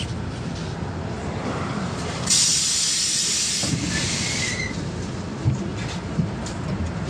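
Inside a standing LiAZ-5292.21 city bus: the diesel engine idles with a steady low rumble. About two seconds in, a loud hiss of compressed air from the bus's pneumatic air-brake or door system lasts over a second and tails off by about four and a half seconds. Two short knocks follow near the end.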